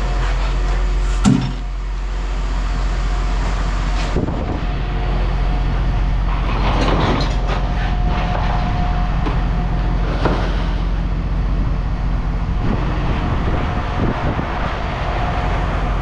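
Steady low machine rumble, like an idling engine, with a sharp thump about a second in and a few metal clanks as scrap motors are set down on a scale.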